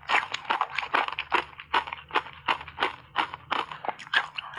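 Ice cubes and matcha-powdered shaved ice being crunched between the teeth, close to the microphone: a rapid run of sharp crunches, about three to four a second.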